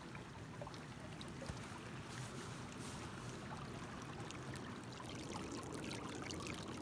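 Shallow mountain river flowing steadily, a continuous rush of water over rocks.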